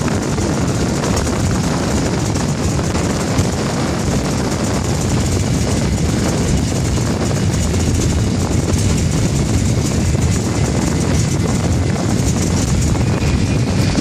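Outboard boat engines running at speed: a steady loud drone mixed with wind and water rush. A thin high whine joins near the end as a speed boat races past.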